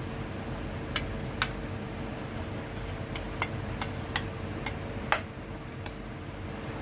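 Metal serving spoon clinking and scraping against a steel plate and an aluminium pot as rice is scooped, about nine sharp, uneven clinks, the loudest about a second and a half and five seconds in, over a steady background hum.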